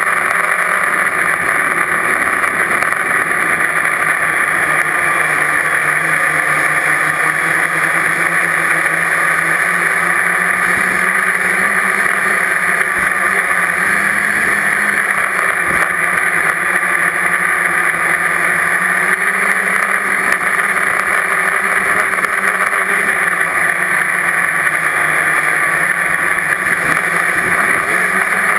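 Multirotor drone's electric motors and propellers running steadily: a loud, even buzz with a thin steady whine above it, with no change in pitch.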